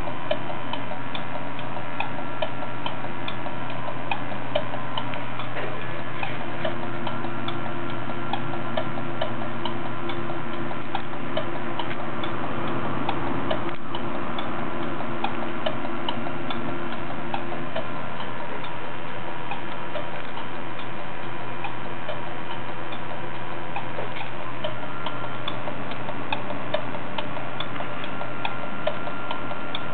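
Failing hard drive in a Maxtor OneTouch III 500GB external disk, ticking over and over at an even pace over a steady hum. The drive has crashed and gives I/O errors, and the clicking is the sign of a mechanical fault inside.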